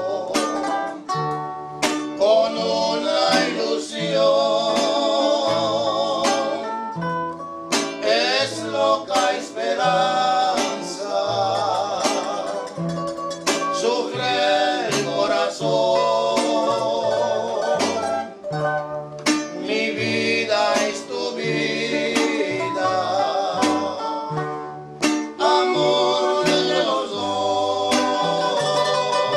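Small acoustic string band playing live: a guitarrón plucks a bass line under a strummed guitar and a small high-pitched guitar, while a man sings the melody with a wavering vibrato.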